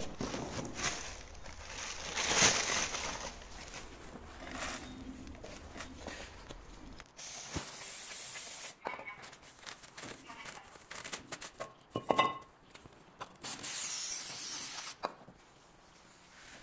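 Brake-job workshop noise: metal tools and parts clinking and knocking, one strike ringing briefly, with two hissing bursts of spray or air of about a second and a half each.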